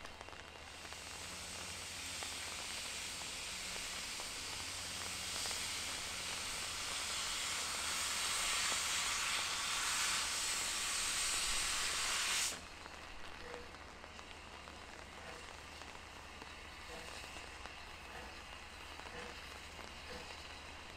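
Steam locomotive's cylinder drain cocks blowing steam in a loud, steady hiss that grows louder and then cuts off abruptly about twelve seconds in as they are closed, leaving a quieter background of rain.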